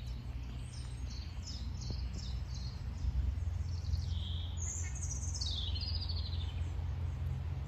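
A small songbird sings a phrase of quick repeated high notes, then a falling trill about five seconds in, over a low steady hum.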